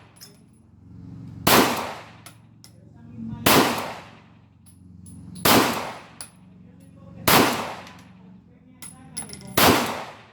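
Glock 19 9mm pistol fired in slow aimed shots: five sharp shots about two seconds apart.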